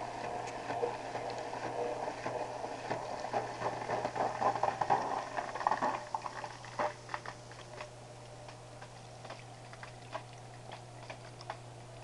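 AquaClear 70 hang-on-back aquarium filter priming after being plugged in: a steady low motor hum under gurgling and bubbling as water fills the filter box. About six seconds in, the gurgling settles to a quieter trickle with scattered drips.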